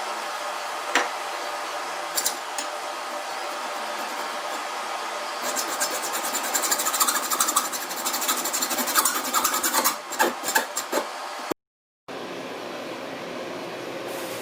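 Hand metalworking on copper pipe: a steady hiss with a few sharp clicks, then a dense run of quick rasping scrapes in the middle that stops before a brief cut to silence near the end.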